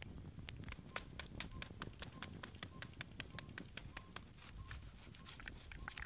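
Log campfire crackling: many sharp, irregular pops over a low steady rumble of the burning wood. A faint short high note repeats about every half second behind it.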